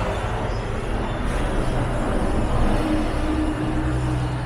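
Street traffic: motor vehicle engines running, with a continuous hum of road noise.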